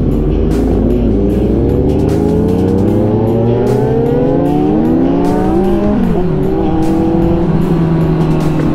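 Several sport motorcycles with loud exhausts accelerating together, their engines rising in pitch through the gears one after another, with one engine climbing and dropping back about six seconds in. Wind rumbles on the microphone at the start.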